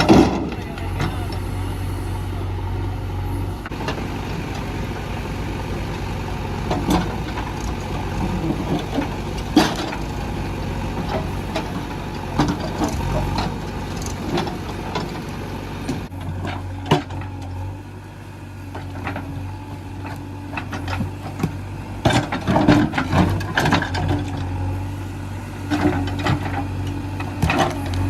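JCB 3DX backhoe loader's diesel engine running steadily, its low note dropping about halfway through. Scattered knocks and clatter of heavy rocks being loaded sound over it, coming thicker near the end.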